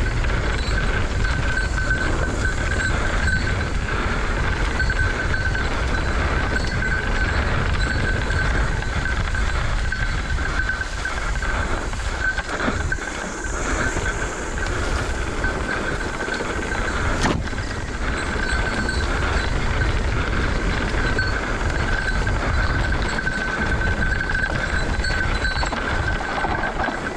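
Mountain bike rolling fast over a rough dirt trail: a continuous rumble of tyres and rattling frame shaken into a camera on the bike, with a steady high tone underneath. A sharp knock comes about 17 seconds in.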